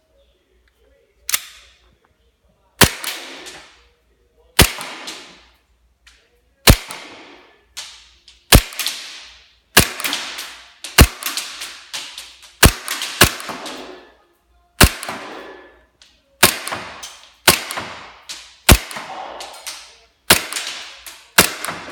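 Tokyo Marui Glock 34 gas blowback airsoft pistol firing single shots on green gas. About eighteen sharp cracks come roughly a second apart at an uneven pace, each trailing off in a short fading tail.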